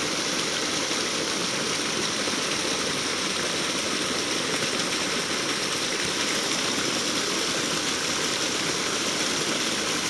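Shallow creek running over a rocky bed: a steady, even rush of flowing water.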